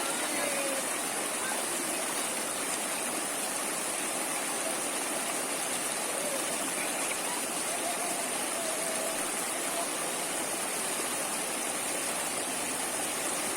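Flowing stream water rushing steadily, with a steady high-pitched hiss above it.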